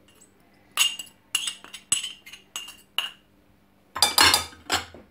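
A ceramic dish clinking about six times against the rim of a glass mixing bowl as chopped coriander and parsley are knocked off it, each clink ringing briefly. About four seconds in comes a louder, noisier clatter.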